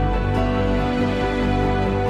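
Instrumental background music of held, sustained notes.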